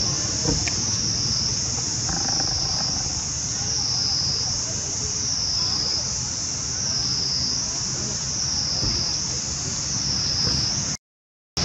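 A loud, steady, high-pitched insect chorus, swelling and fading about once a second, over a low background rumble. It cuts off suddenly near the end.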